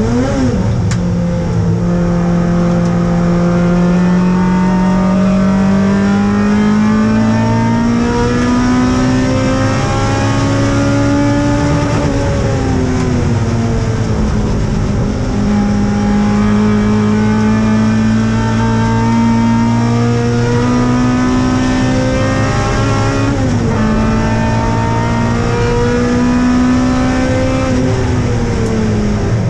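Mazda MX-5's BP05 1.8-litre four-cylinder with big cams, run hard on track and heard from inside the stripped cabin. The engine note climbs slowly through a long pull, falls sharply about twelve seconds in, then climbs through another long pull. It jumps briefly about twenty-three seconds in and falls again near the end.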